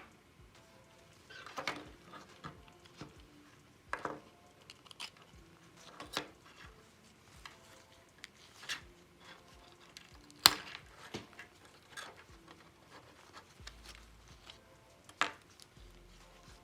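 Scattered sharp clicks and taps of small parts and hand tools being handled while working on a diecast model car, irregularly spaced, with the loudest knock about ten seconds in.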